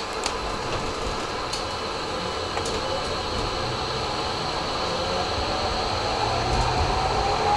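Tram accelerating from a stop, heard from the driver's cab. The traction motors whine, rising steadily in pitch from about three seconds in, over the running noise of the wheels on the rails, with a few light clicks in the first seconds.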